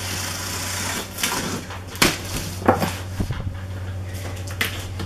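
A box cutter slitting the packing tape along the top of a cardboard box, a short steady hiss, followed by the cardboard flaps being pulled open with a few sharp knocks and rustles.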